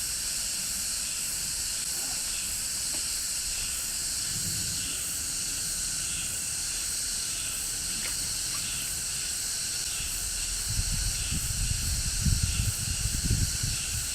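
A steady high-pitched outdoor hiss with a faint, even pulsing. From a bit past ten seconds in, irregular low rumbling gusts join it.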